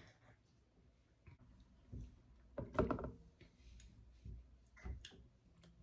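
A table knife knocking and scraping against a plastic tub while soft baked sweet potato is scraped off it. A few scattered knocks and clicks, the loudest just under three seconds in.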